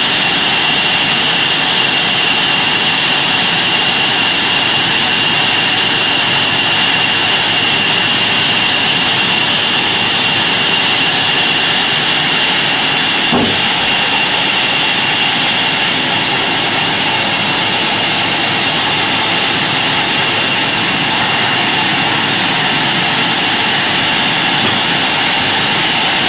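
Large vertical log band saw running steadily: a loud, even mechanical rush with a steady high whine over it.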